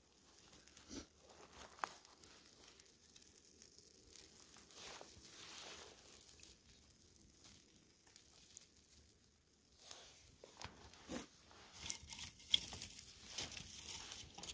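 Faint rustling and crinkling, like material being handled, with scattered sharp light clicks; it is sparse at first, quiet through the middle, and busier with more clicks in the last few seconds.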